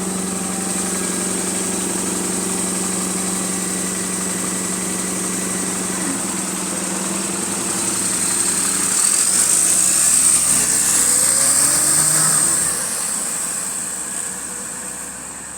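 Bus engine running with a steady tone, then changing and growing louder for a few seconds before fading away, as from a bus pulling off. The bus is said to have a slight exhaust leak.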